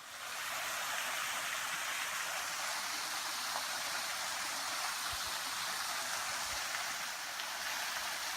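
Small creek waterfall running full after heavy overnight rain: a steady rushing splash of falling water that swells within the first second as it is approached, then holds even.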